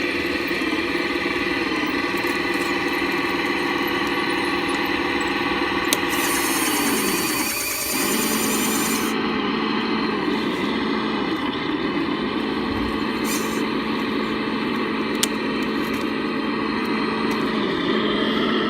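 A 1/14-scale RC Caterpillar D11 bulldozer at work, making a steady engine-like drone. About seven seconds in the pitch sags and then picks back up, and a high hiss runs over it for a few seconds around that point.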